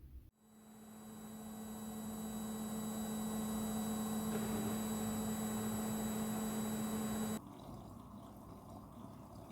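Front-loading washing machine taking in water: a steady hum over rushing water that cuts off sharply about seven seconds in, leaving a softer trickle.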